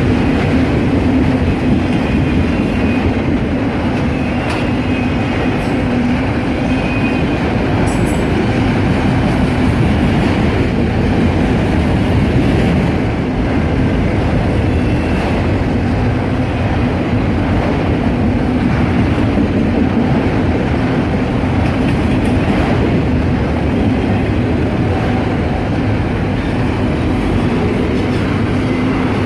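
Norfolk Southern freight train cars rolling past close by: a steady, loud rumble and rattle of steel wheels on the rail, with a faint high wheel squeal in the first few seconds.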